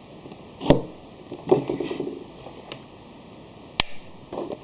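Sharp plastic clicks and knocks of a USB charging cable's plug being handled and pushed into a socket: two sharp clicks about three seconds apart, with softer handling noise between them.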